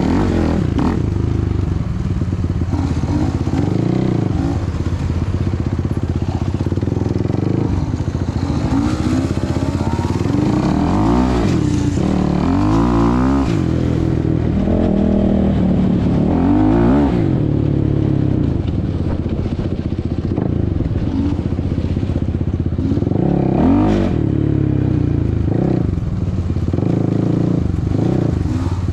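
Sport quad (ATV) engine running as it is ridden, revving up and falling back several times, with sharp rises about a third of the way in, past the middle and near the end.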